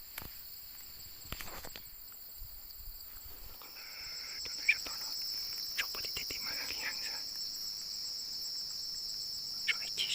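Insects chirring in a steady, high-pitched drone that swells about a third of the way in, with scattered small clicks and rustles and one sharper click near the middle.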